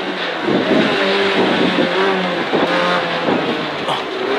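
Peugeot 206 A6K rally car's 1.6-litre engine pulling hard, its pitch climbing and breaking off as it shifts gear, heard from inside the cabin over road and tyre noise.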